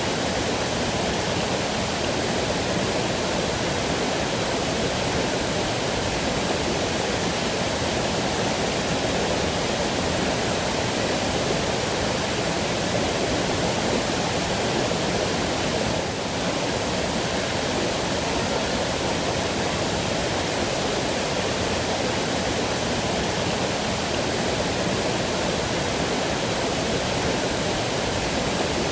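Waterfall: a steady, unbroken rush of falling and splashing water, dipping slightly for a moment about halfway through.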